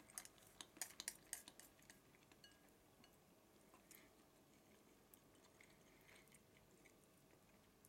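Faint eating sounds: quiet chewing and small clicks of wooden chopsticks against a ceramic rice bowl, busiest in the first second and a half and sparse after that.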